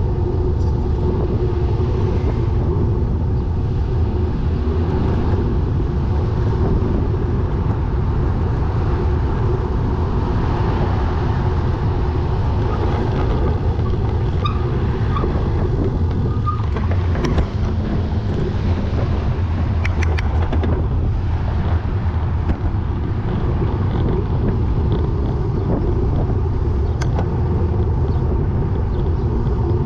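Steady low rumble of road and wind noise while moving along a street, with a few short clicks a little past the middle.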